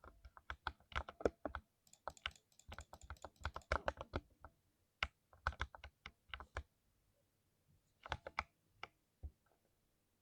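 Typing on a 60% mechanical keyboard: fast runs of keystrokes broken by short pauses, thinning to a brief burst and a few single presses near the end.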